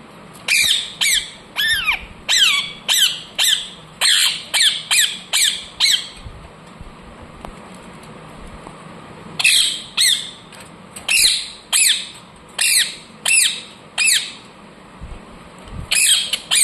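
Parrot squawking in runs of short, high-pitched calls, about two a second, with a pause of a few seconds partway through.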